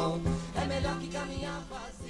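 Recorded pop song fading out at its end: the band's instrumental backing, with a steady bass line under sustained chords, falls steadily in level.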